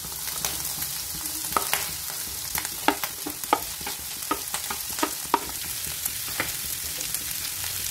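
Pork pieces sizzling steadily in a frying pan as chopped onion, cabbage, green chilli and ginger are scraped into it off a plate with a wooden spatula. A run of sharp knocks and clinks of the spatula against the plate and pan comes through the middle.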